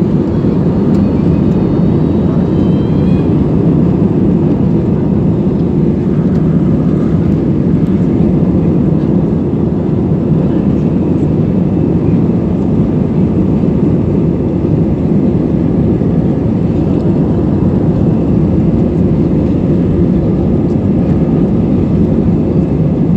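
Airbus A320 jet engines at takeoff power, heard inside the passenger cabin: a steady, loud rumble. A faint high whine rises between about one and three seconds in.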